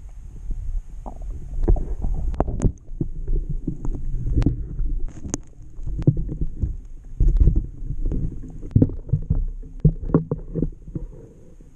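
Muffled rumbling water noise and many irregular knocks picked up by a waterproof camera as it moves through the water and breaks the surface, with a hooked fish splashing at the surface near the boat.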